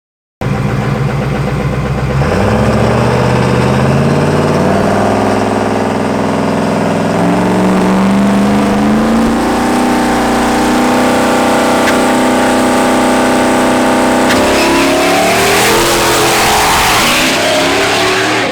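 6.6L Duramax V8 diesel engine running loud, its revs climbing steadily for about twelve seconds. About fourteen seconds in it lets off, and a loud rushing noise follows as the revs fall.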